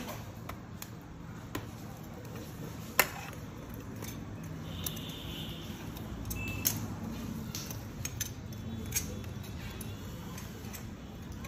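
Metal spoon scraping and tapping against a plate while scooping up crumbly milk candy, with scattered light clinks; the sharpest clink comes about three seconds in.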